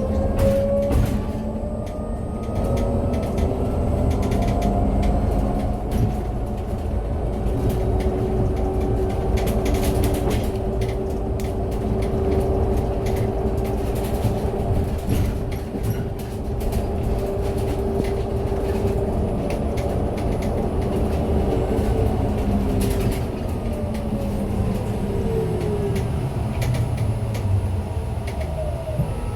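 MAZ-303E23 electric bus under way: the traction motor's whine climbs in pitch as the bus accelerates, holds steady while it cruises, then falls away near the end as it slows. Under it runs a steady rumble of road noise, with scattered short rattles.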